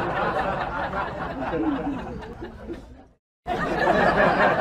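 A group of people chattering and laughing with no clear words. It fades out about three seconds in, drops to silence for a moment, and starts again as before.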